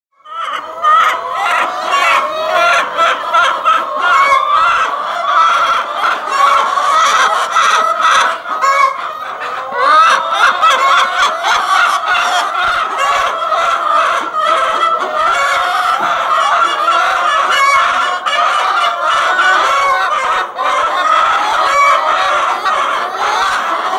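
A flock of brown laying hens clucking and squawking loudly and without a break, many calls overlapping. Hens ready to lay have been making this racket for weeks, which the owner thinks may be anger at another hen sitting in their favourite nest, though he is not sure.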